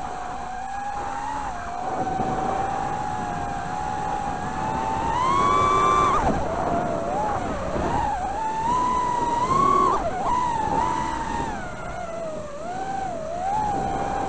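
Emax Tinyhawk micro FPV drone's brushless motors whining in flight, the pitch rising and falling with throttle: a sharp climb about five seconds in, then repeated swoops up and down. Heard close up through the onboard camera's microphone, with a hiss of wind noise.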